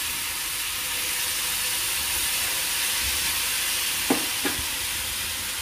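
Paniyaram batter frying in oil in the wells of a hot kuzhi paniyaram pan: a steady sizzle, with two brief squeaks about four seconds in.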